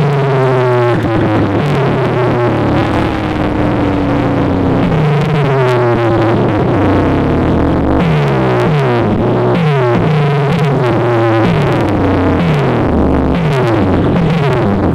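Loud electronic DJ music blasted through big sound-system speakers: synthesizer sweeps falling in pitch again and again, piling over one another, over a steady bass.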